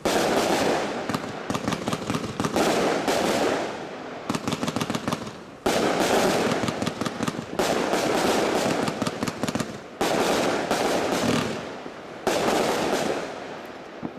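China Red 'Air Raid' 36-shot firework cake firing shots in rapid succession, with dense bangs and crackles. It comes in waves, a fresh loud surge every two to three seconds, and dies away near the end as the cake finishes.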